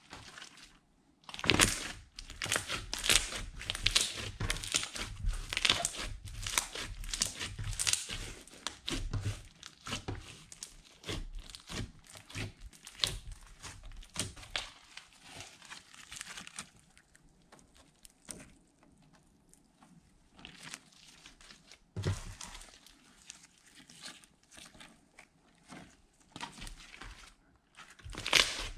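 Hands squishing and kneading a large glitter slime: wet crackling and popping as trapped air pockets burst under the fingers. It comes thick and fast for the first half, then thins out, with one louder pop about three quarters of the way through.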